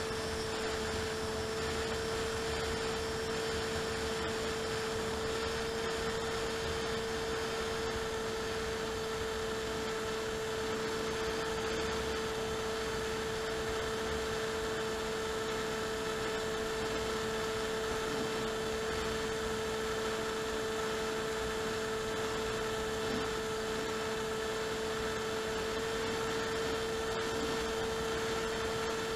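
Electric motor and propeller of an AXN model plane running at a steady cruise, heard from the onboard camera. It gives an even hum at a constant pitch over a haze of airflow noise.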